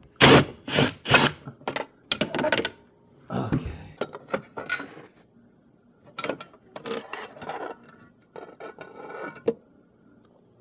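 Ratchet with a 5/16-inch socket backing out a screw on a dishwasher's sheet-metal junction box cover, a quick run of clicking strokes in the first few seconds. It is followed by scattered scrapes and clinks of the metal cover plate being worked loose and pulled off.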